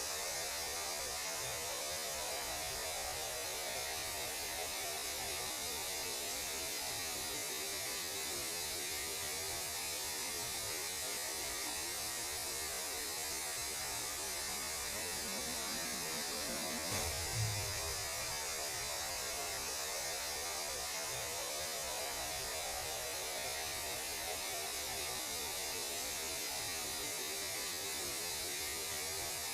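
Steady electronic static hiss with a low hum underneath, space radio noise rendered as sound. A brief low thud a little past the middle.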